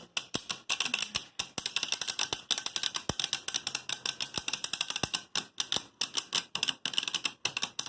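Helios Volcano and Hyperion Burn Beyblade tops spinning and clashing in a plastic stadium: a rapid, irregular run of sharp clicks and clacks, several a second.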